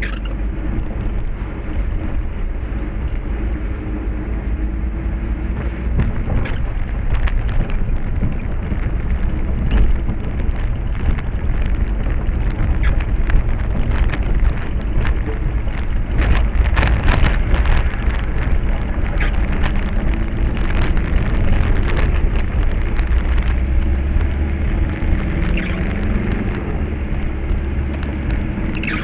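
Car cabin noise picked up by a dashcam: engine and tyres running slowly through shallow muddy floodwater, a steady low rumble. Scattered spatters and clicks of water on the body and glass are thickest about halfway through, and the engine note rises a little near the end.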